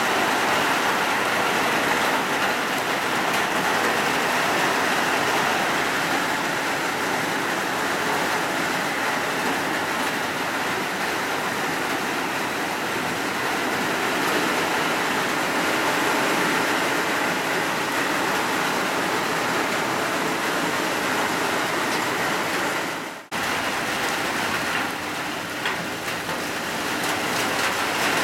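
Heavy rain pouring steadily, a dense even hiss. It cuts out for an instant about 23 seconds in, then carries on.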